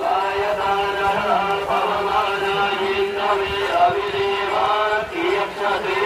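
Crowd of devotees chanting an aarti together, many voices over a steady held note.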